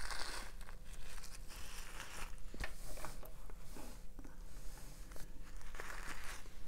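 Small plastic bag of rhinestones crinkling and rustling as it is handled, with a few light clicks.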